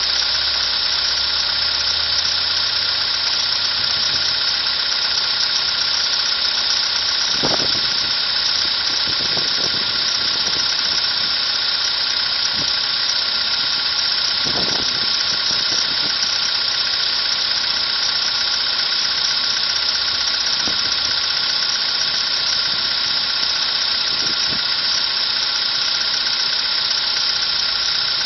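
Car engine idling steadily in cold weather (about −10 °C) and running without the knock it had before, which is the sign the title describes. There are a couple of faint brief thuds partway through.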